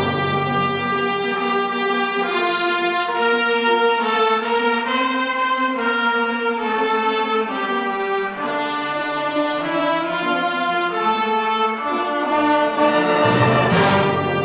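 Combined brass band playing a slow hymn in sustained chords, with trumpets, trombones and horns. The bass notes drop out for most of the passage and come back with a louder swell near the end.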